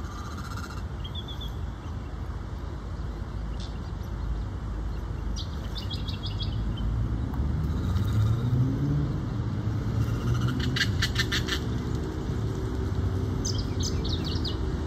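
Steady rumble of freeway traffic that swells about halfway through as one vehicle's engine note rises in pitch. Short high bird chirps come in quick series over it, three times.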